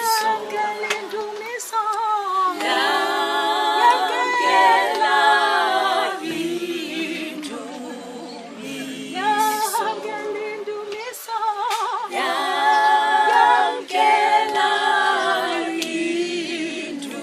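A cappella singing by a group of voices in harmony, with no instruments. The voices waver with vibrato and move in phrases of a few seconds, thinning to lower held notes between phrases.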